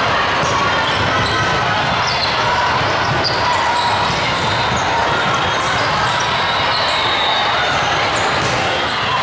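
Volleyball rally in a big hall: the ball being struck and sneakers squeaking on the court in many short chirps, over a steady din of spectators' voices.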